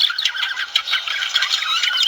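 Budgerigars warbling and chirping: a dense, continuous chatter of quick chirps, squeaks and short gliding notes.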